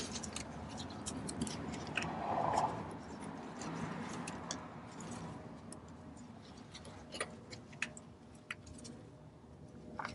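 Scattered light metallic clicks and ticks as gloved hands handle and turn the ring gear and carrier of an open Dana 35 rear differential, with a brief soft rustle about two seconds in.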